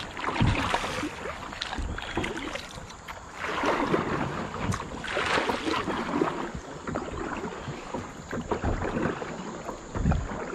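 Double-bladed kayak paddle strokes: the blades dip and pull through river water in splashy swells every second or two, with water running off the paddle and a few low thumps.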